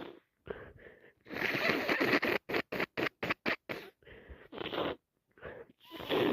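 Nasal sounds from a person with a cold and allergies: a long rushing blow through the nose about a second in, then a quick run of short sniffs, about five a second, and more sniffles near the end.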